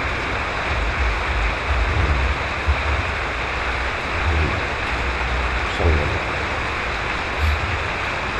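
Steady rushing hiss with intermittent low rumbles, and a couple of faint brief rising sounds about four and six seconds in.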